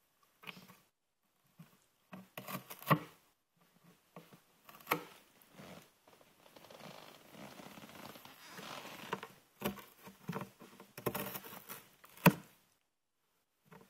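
Cat tearing at a cardboard box: irregular ripping and scratching of cardboard with sharp snaps, and a stretch of steady scraping in the middle.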